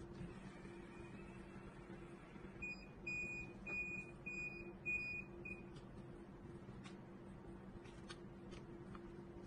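Cordless automatic hair curler beeping: about six short, high, same-pitched beeps in quick succession, about three seconds in, the timer signal that the curl is done. A faint low steady hum runs underneath.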